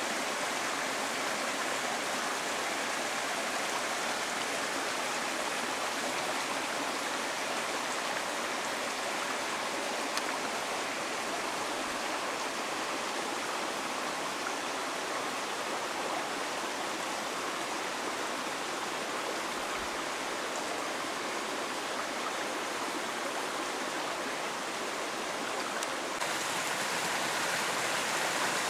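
Steady rush of running water from a shallow rocky mountain stream, a little louder and brighter near the end.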